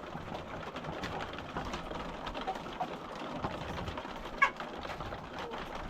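A flock of laying hens feeding: many small pecking ticks, soft low clucking, and one short call about four seconds in.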